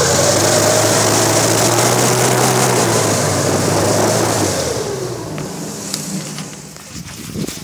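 Airboat engine and propeller running loud and steady, then easing off and winding down from about halfway through.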